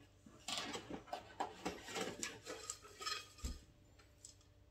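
Handling noise from a small Pringles can being taken out of a cardboard advent calendar: a run of irregular clicks, taps and light clinks. It ends with a dull knock about three and a half seconds in.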